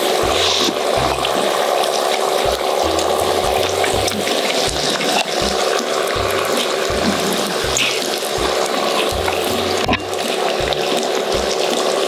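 Pork belly sizzling steadily on a hot griddle, under background music with a pulsing, stepping bass line.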